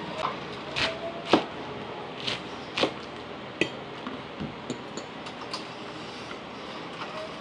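Metal fork clinking and scraping against a dinner plate while eating: several sharp clinks in the first three seconds, the loudest a little over a second in, then fewer and softer ones.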